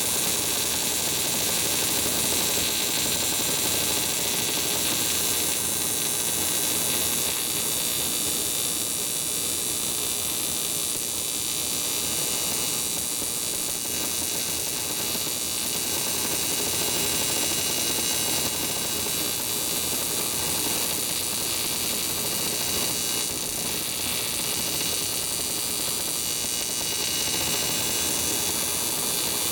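TIG welding arc on an aluminium Harley-Davidson panhead cylinder head, running without a break as a steady hissing buzz. The welder is AC, the usual current for TIG on aluminium.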